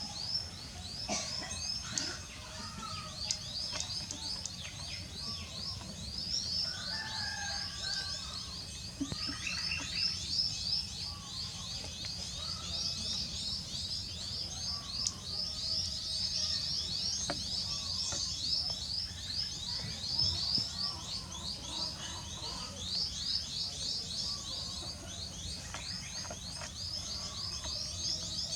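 Birds chirping: a dense, continuous run of high chirps, with scattered lower calls over a steady low rumble of background noise.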